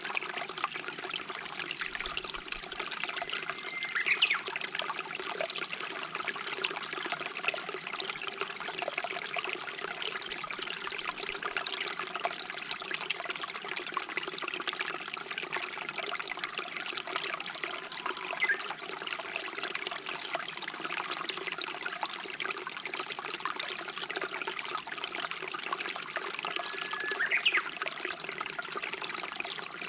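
A shallow stream babbling and trickling steadily over rocks. A bird gives a short whistled call twice, once a few seconds in and again near the end, each a held note with a quick upward flick.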